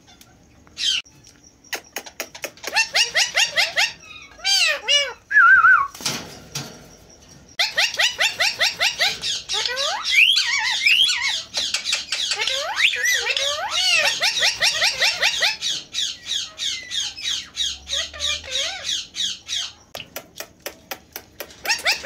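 Indian ringneck parakeet calling: a few scattered high-pitched squawks at first, then from about seven seconds in a long rapid run of squawks, about five a second, which breaks off about twenty seconds in.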